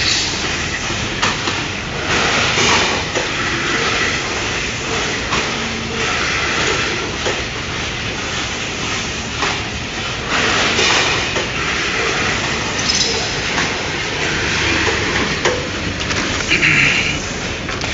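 Rotary premade-pouch filling and sealing machine running: a steady mechanical clatter with frequent clicks and short hisses.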